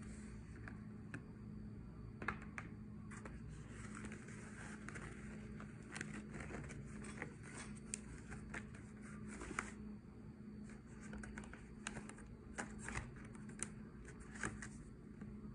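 Handling of a woven polypropylene-band basket: scattered clicks and scratchy rustles as the stiff plastic strips and braided handles are moved and pressed, over a steady low hum.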